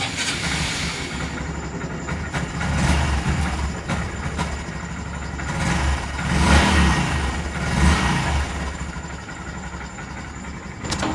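Honda Monkey 125's small single-cylinder four-stroke engine running and being revved, swelling in loudness about three times.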